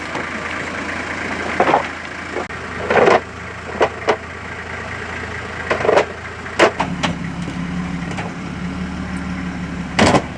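Four-wheel-drive engine running at low revs while crawling over rocks, with several short knocks spread through. The engine note changes and settles lower about seven seconds in.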